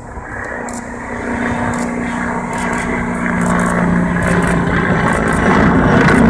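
T129 ATAK attack helicopter flying by, its rotor and engine noise growing steadily louder as it approaches, with a steady low hum through the first few seconds.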